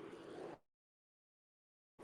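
Near silence: faint background noise that cuts off about half a second in, leaving dead digital silence, an audio dropout.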